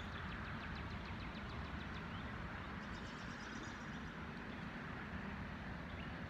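Steady rush of a flowing river, with wind rumbling on the microphone. A faint run of rapid ticking comes in about three seconds in.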